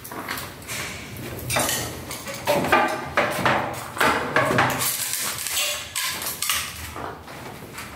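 Aluminium LED profile being pushed and knocked into a recessed ceiling channel by hand: irregular metallic knocks and clinks, some with a brief ring.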